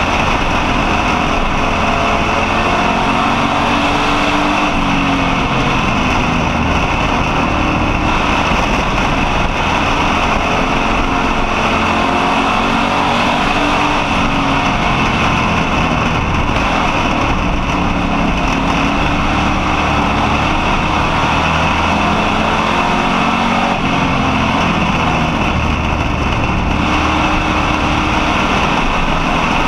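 Street stock race car's engine at racing speed, heard from inside the car, its pitch rising and falling every few seconds as the throttle comes on and off through the turns, over a constant rush of wind and tyre noise.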